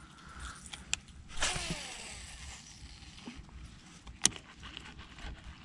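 Fishing rod being cast with its reel: a whoosh of rod and line about a second and a half in, fading away, then a single sharp click near four seconds in, among small handling clicks.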